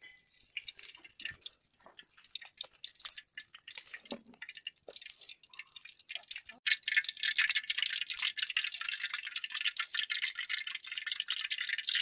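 Hot oil in a pan over a wood fire, crackling and sizzling. Sparse crackles at first, then about seven seconds in, as something is poured into the pan, it breaks into a much louder, dense sizzle that carries on steadily.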